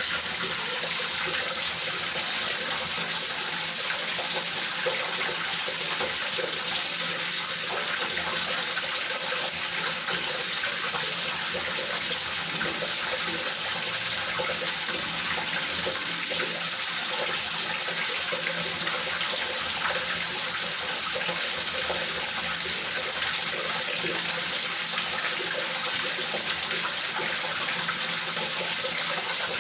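Rain falling steadily: an even, unchanging hiss.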